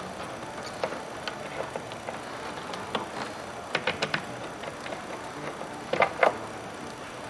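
Scattered light clicks and taps of hand tools and small door parts being handled, with a quick run of clicks a little under four seconds in and two sharper knocks about six seconds in.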